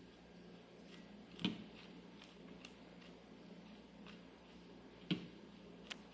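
Light clicks and taps of kitchen utensils and a cup being handled, with two sharper knocks, one about a second and a half in and one about five seconds in.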